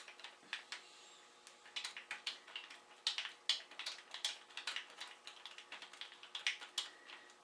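Irregular light clicks and taps of small metal hand tools, such as a screwdriver working on the clamp screws of the carburettor intake boots.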